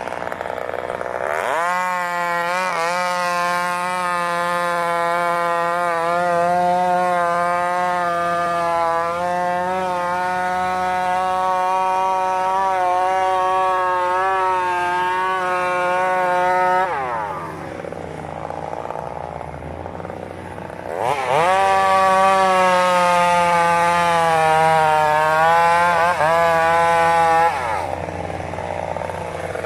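Two-stroke chainsaw run at full throttle and cutting into a tree trunk for about fifteen seconds. It drops back to a low idle for a few seconds, then revs up for a second cut of about six seconds. It drops off again and is revved once more near the end.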